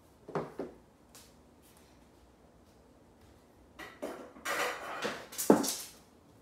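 Objects being handled and set down: two soft knocks near the start, then about two seconds of clattering and rustling with one sharp knock about five and a half seconds in.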